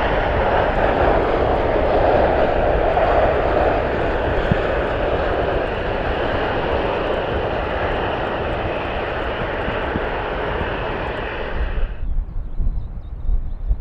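Jet airliner engines running loud and close, a dense noise with a steady high whine through it. The sound cuts off abruptly about twelve seconds in, leaving only a low, uneven rumble.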